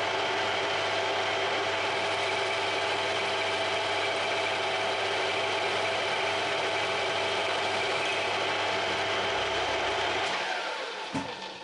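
Metalworking machine tool in a workshop running steadily, then switched off about ten seconds in and winding down with a falling pitch, followed by a sharp click and a few light taps.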